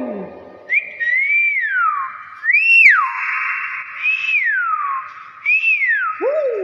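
Hill myna whistling: four loud whistled notes about a second apart, each rising briefly and then sliding down, with a fifth, lower note starting near the end.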